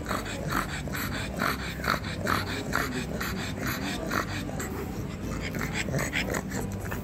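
Black pug panting close to the microphone, short noisy breaths coming about two or three a second.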